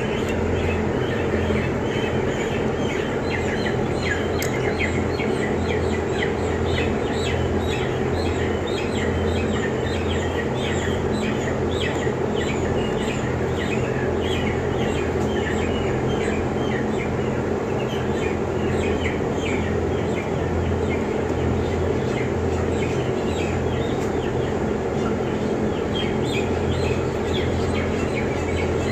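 A dense, continuous chorus of short high peeps from a flock of broiler chickens in a closed-house barn, over a steady low hum of running equipment.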